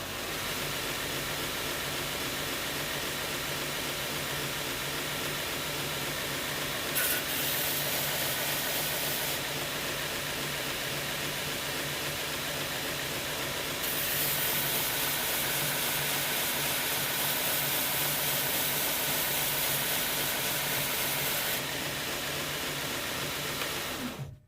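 Belt grinder running with a 400-grit belt, a motor hum under a steady hiss, as a steel knife blade is ground to thin the tang for liner clearance. The hiss turns louder and harsher twice, about seven seconds in and again for most of the second half, then the grinder stops suddenly near the end.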